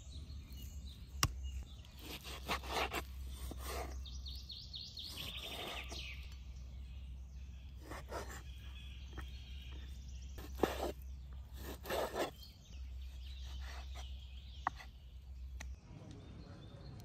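Birds chirping in short scattered calls, with a few sharp knocks of a cleaver striking a wooden cutting board as raw pork is chopped into small pieces, over a low steady rumble.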